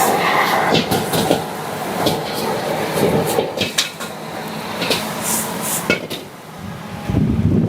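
Metal spatula clanking and scraping against a wok while stir-frying noodles, in quick irregular knocks. A heavier low rumble comes in near the end.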